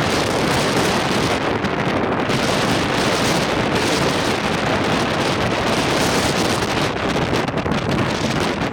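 Strong thunderstorm wind blowing hard across the microphone, a loud steady rush that surges and eases in gusts.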